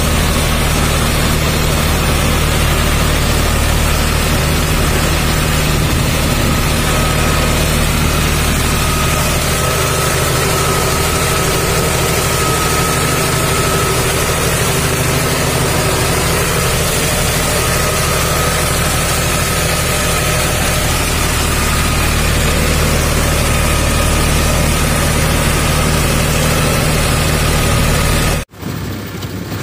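John Deere 5310 tractor's three-cylinder diesel engine running steadily under load while tilling a flooded paddy field, with a faint steady whine above the engine note. Near the end it cuts off abruptly, replaced by a quieter engine.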